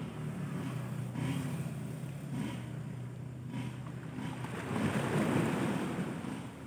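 Small waves washing against shoreline boulders, with a louder wash about five seconds in, over a steady low hum and some wind on the microphone.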